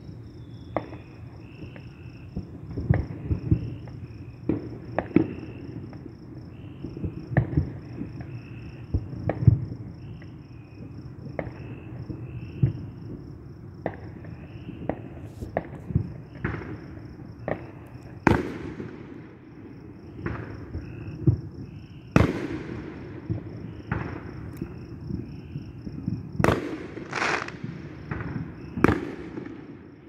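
Fireworks and firecrackers going off, with irregular sharp bangs and echoing tails, and louder cracks clustered in the second half. Crickets chirp steadily underneath in a fast pulsed trill.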